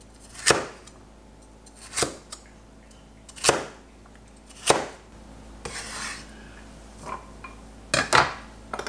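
Chinese cleaver chopping a carrot into small dice on a wooden cutting board: four sharp chops about one and a half seconds apart, a brief scrape about six seconds in, then a few more knocks on the board near the end.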